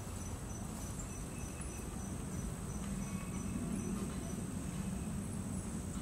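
Insects trilling: a steady high-pitched trill throughout, joined by a regular pulsed chirp that stops about a second in, over a low background rumble that swells slightly midway.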